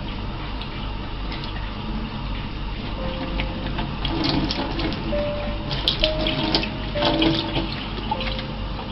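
Kitchen tap running steadily into a stainless steel sink, with a cluster of sharp splashes and clicks between about four and seven seconds in as a cat paws at the water.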